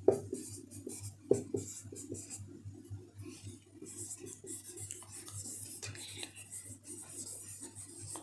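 Whiteboard marker writing on a whiteboard: a run of short strokes, with a sharper tap right at the start and another about a second in.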